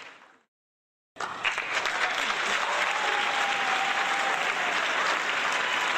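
The last of a fading music track, a second of dead silence, then crowd applause that starts abruptly about a second in and carries on dense and steady.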